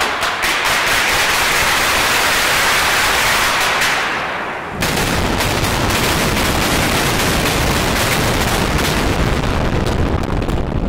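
Controlled drill-and-blast detonation of explosive charges in a rock tunnel face: a rapid run of sharp cracks over a loud hiss for about four seconds. About five seconds in, a heavier blast starts suddenly with a deep rumble and more cracks that thin out near the end.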